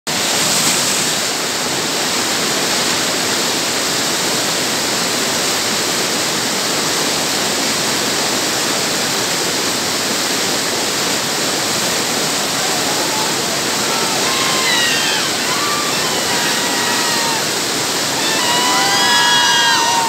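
Whitewater rapid rushing steadily over rocks. From about two-thirds of the way in, shouts and whoops of rafters rise above it, loudest near the end.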